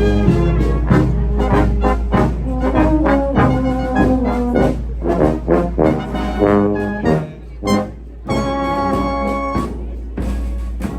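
Brass band playing a marching tune with trombones and trumpets, punctuated by drum beats; the music dips briefly about two-thirds of the way through, then resumes.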